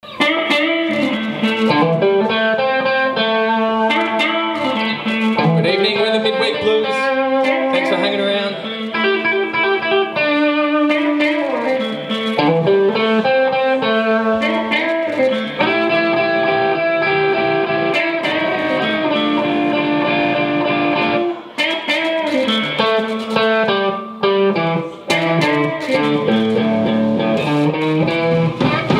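Live blues band playing a song intro on amplified electric guitars, with steady picked notes and chords throughout.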